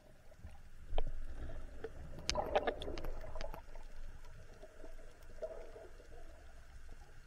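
Underwater sound picked up by a camera on a speargun: a steady low rumble with scattered sharp clicks. A dense cluster of clicks and a gurgle come about two and a half seconds in, with a softer gurgle again near five and a half seconds.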